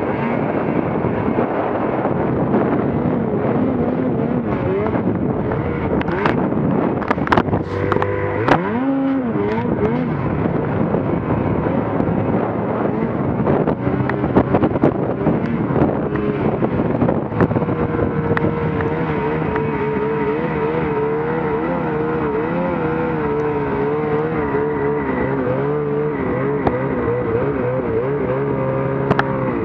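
Snowmobile engine running under constantly changing throttle while riding through deep powder, its pitch wavering up and down. About eight seconds in the revs drop sharply and climb back, with a few sharp knocks around that moment.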